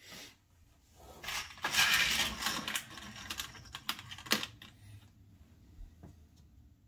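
Fingers rummaging in a small plastic box of metal track pins: a dry rattling and clicking that lasts a few seconds, ending in a sharp click.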